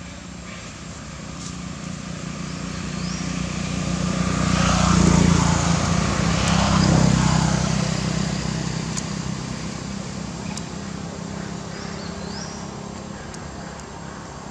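A motor vehicle passing by, its engine growing louder to a peak about five to seven seconds in and then fading away.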